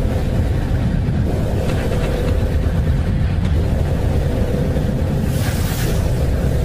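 Space sonification presented as the sound of Neptune's moon Triton: a steady, deep rumble with a faint steady hum in it. A brief hiss swells up about five seconds in.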